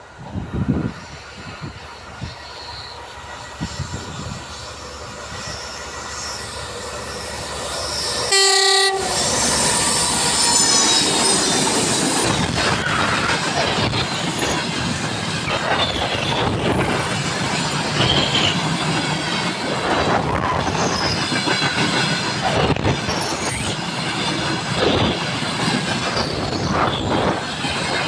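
A train approaches, growing louder, and gives one short horn blast about eight seconds in. It then passes close by, its wheels rolling loudly over the rail joints with high squeals.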